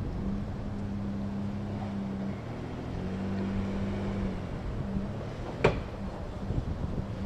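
Nissan Frontier PRO-4X's V6 engine running off road, a steady drone that holds its pitch. There is a single sharp knock about five and a half seconds in.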